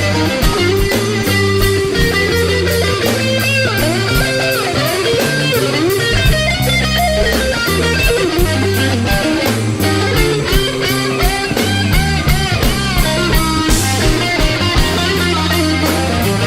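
Instrumental break in a blues song: an electric guitar plays lead lines with bent notes over a bass line and a steady drum beat.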